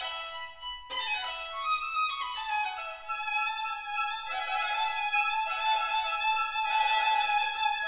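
Background music led by violin, playing quick descending runs of notes that give way to longer held notes.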